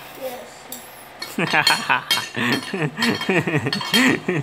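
Spoon and fork clinking and scraping on a ceramic dinner plate while eating. Quiet at first; from about a second in, a voice sounds over the clinks.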